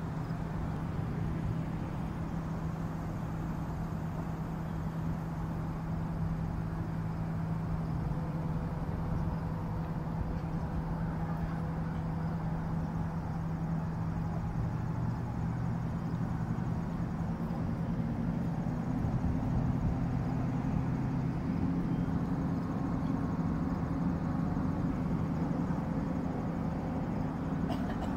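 Steady low engine hum. About two-thirds of the way through it shifts to a higher pitch and grows slightly louder.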